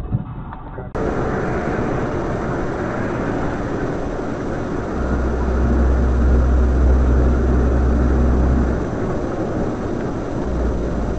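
Steady road and engine noise inside a moving vehicle on a highway. It starts abruptly about a second in, and a deep rumble swells from about four to nine seconds in.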